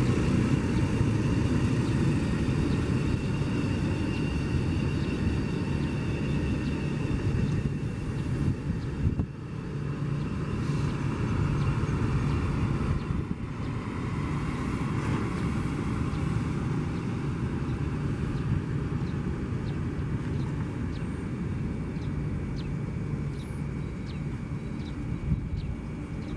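KCIC400AF high-speed comprehensive inspection train rolling past under its own electric power: a steady low rumble of wheels on rail with a faint steady high tone. The sound eases a little about halfway through as the end car passes and the train draws away.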